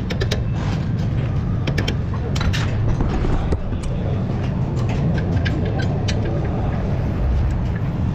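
Hammer tapping on the bolt at the strut-to-knuckle clamp: a few sharp metal knocks in the first few seconds, spaced out and then stopping. Under them runs a steady low rumble.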